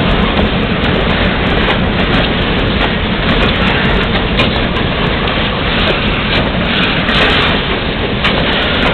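Short Union Pacific freight train led by a GP38-2 diesel locomotive rolling past, wheels clicking over the rail joints, in heavy rain.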